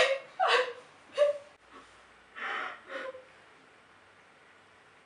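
A woman's short gasps and whimpering cries: several in quick succession in the first second or so, then a breathy gasp about two and a half seconds in, and a faint one soon after.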